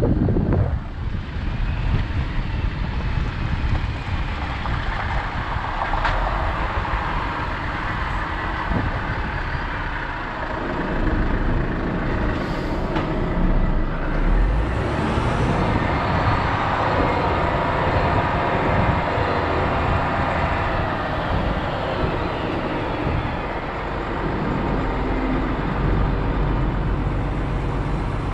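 Heavy truck on the move: the engine running under continuous road noise, with a couple of brief sharp sounds about halfway through.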